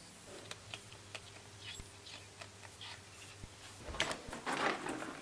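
Faint scattered light taps and rustles of a ferret moving about in a quilted oven glove, over a low steady hum. About four seconds in, louder rustling starts.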